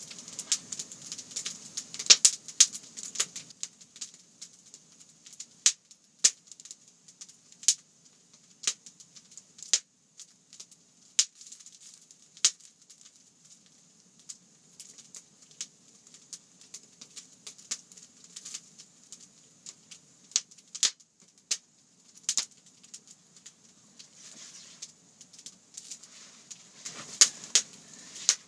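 Wood campfire crackling, with irregular sharp pops and snaps from the burning logs.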